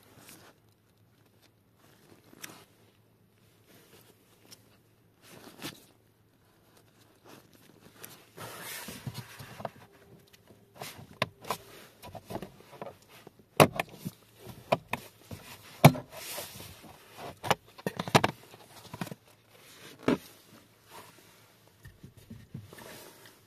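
Black plastic lower dash cover panel being handled and worked off by a gloved hand: scattered scrapes, rustling and sharp plastic clicks and knocks, sparse at first and busier and louder from about a third of the way in.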